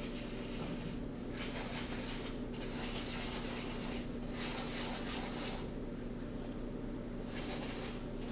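A paintbrush scrubbing paint onto cardboard in repeated strokes, each about a second long, with short breaks between them. A steady low hum runs underneath.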